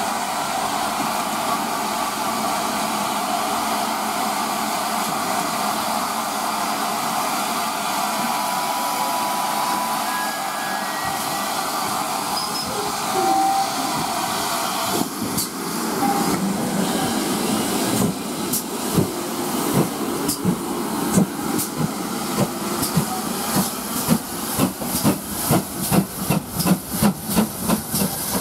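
GWR 5205-class 2-8-0 tank locomotive: a steady steam hiss from its vacuum brake for about the first half, then it moves off. Its exhaust chuffs start slowly and quicken to about three a second near the end.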